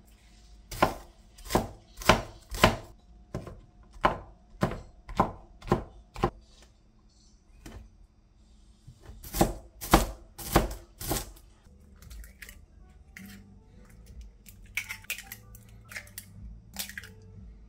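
Knife chopping on a cutting board at about two strokes a second: a run of roughly a dozen chops, a pause of a few seconds, then five more, followed by lighter clicks near the end.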